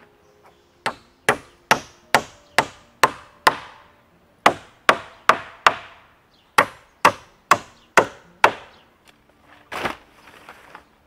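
Hammer blows on wooden roof boards: three runs of sharp strikes, about two to three a second, with short pauses between. A brief rustle near the end.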